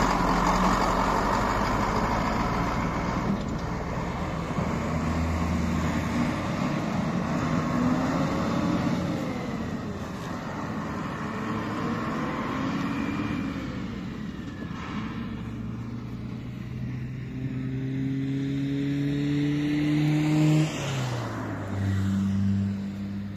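A motor vehicle's engine running, its pitch climbing steadily for several seconds, then dropping suddenly about 21 seconds in and holding at a lower pitch.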